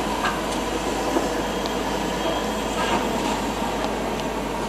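Steady grinding noise of demolition machinery taking down a tower block, broken by a few short sharp knocks.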